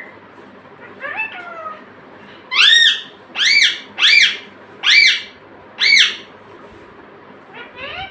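Pet ring-necked parakeet calling: a softer call about a second in, then five loud, shrill screeches in quick succession, each rising and then falling in pitch, and a softer rising call near the end.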